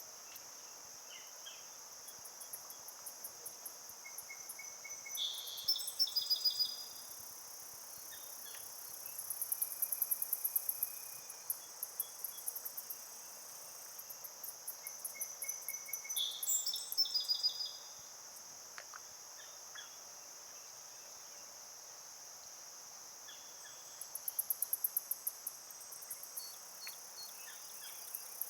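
Chorus of insects in summer: a steady high buzz, with bursts of rapid pulsed trilling every several seconds and a few faint chirps.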